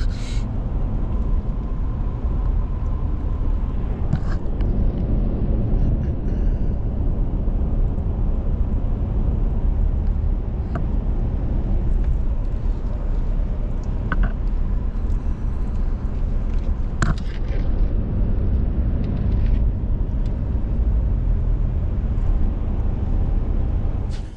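Car being driven: a steady low rumble of road and engine noise, with a few faint clicks.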